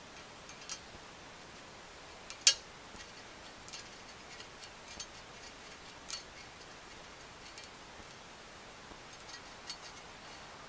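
Small sharp metallic clicks and ticks, spaced a second or more apart, as steel needle rollers are pushed and seated into the needle bearing race in the rear A-arm bore of a Polaris Outlaw 525; the sharpest click comes about two and a half seconds in.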